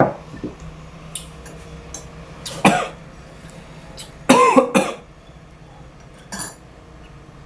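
A person coughing and clearing their throat: a handful of short coughs, the loudest two about two and a half and four and a half seconds in, the second longer and voiced.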